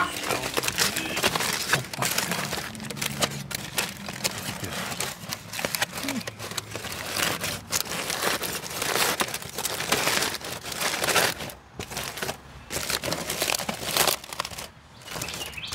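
Aluminium foil crinkling and crumpling as gloved hands peel it open, an irregular run of crackly rustles with louder crunches throughout.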